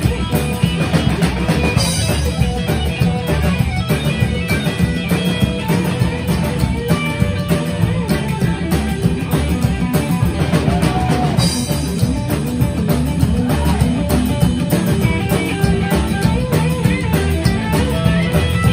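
Live rock band playing: upright double bass, electric guitar and drum kit, loud and steady with a driving beat.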